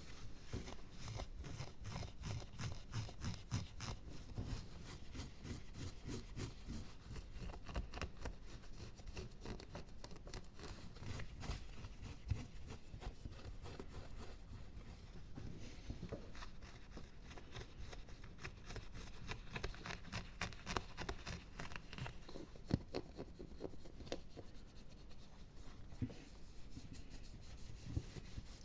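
Fingers and nails scratching and rubbing on an object held close to the microphone, in quick, dense strokes, with a few sharper clicks.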